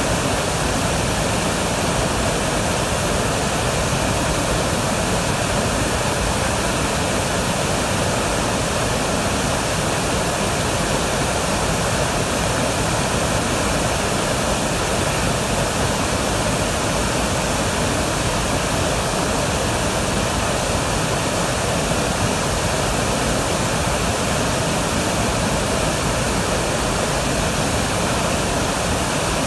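Waterfall in flood, a heavy volume of muddy water pouring over a rock ledge onto boulders: a steady, loud rush of water that does not change.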